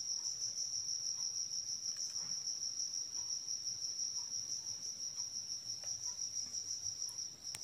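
Insect trilling steadily: one continuous high-pitched, finely pulsing trill.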